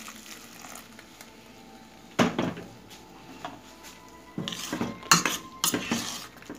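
Water poured into a stainless steel pot of stewing shrimp, then a single sharp knock about two seconds in. From about halfway through, a spoon clinks and scrapes against the pot as the stew is stirred.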